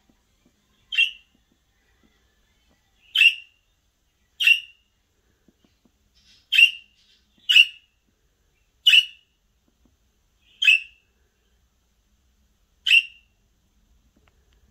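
Budgerigars chirping: eight short, sharp calls, one every second or two at an uneven pace.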